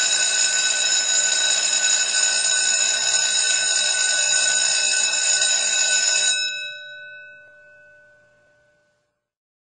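School bell ringing rapidly and without a break, then stopping about six seconds in, its tone ringing on and fading away over the next two seconds or so.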